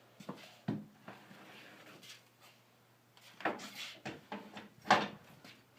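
Knocks and clatter of a circular saw being handled and set down on a plywood guide, with the saw not running; the loudest knock comes about five seconds in.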